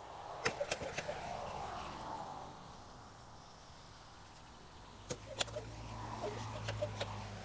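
Knocks and clatter of things being shifted around, a trash can among them: a cluster of sharp knocks about half a second in and another about five seconds in. A low steady hum comes in during the second half.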